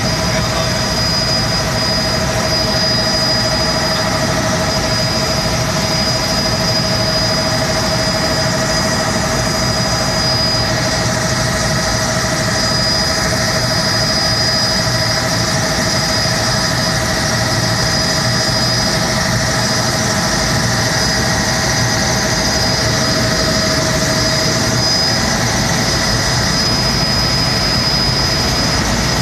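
Helicopter in flight heard from inside the cabin: steady engine and rotor noise with a constant high whine over it.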